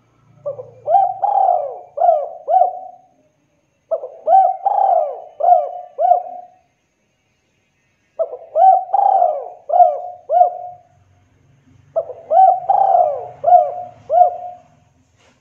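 Spotted dove cooing: four phrases about every four seconds, each a run of four or five quick coos that rise and fall in pitch.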